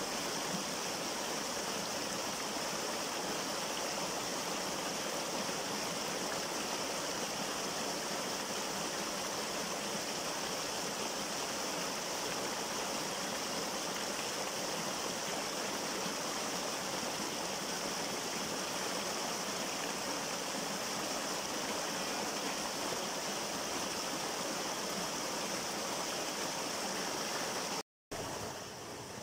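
Small waterfall pouring over a rock ledge into a pool: a steady rush and splash of falling water. Near the end it cuts off for a moment and comes back quieter.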